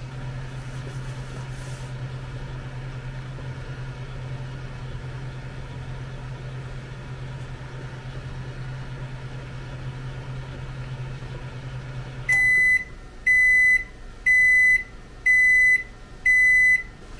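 Hamilton Beach microwave, converted into a UV resin curing station, running with a steady low hum. The hum stops about twelve seconds in as the timer reaches zero, and the control panel gives five high beeps about a second apart to signal the end of the cycle.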